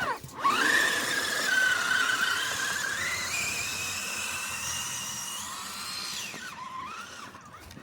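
Electric motor and gear whine of an RC rock crawler driven at varying throttle, the pitch rising and falling. It drops out briefly at the start, steps up about three seconds in, and dies away near the end.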